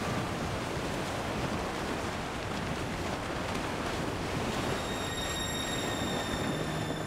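Ship's bow breaking through sea ice: a steady grinding rush of ice cracking and scraping against the hull. Music with high sustained tones fades in over the second half.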